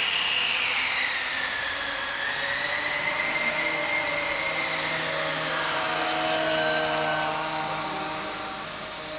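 Electric ducted fans of a radio-controlled Airbus A310 model spooling up in a sudden surge to a high whine. The pitch drops over the next two seconds, then the whine holds steady and fades near the end.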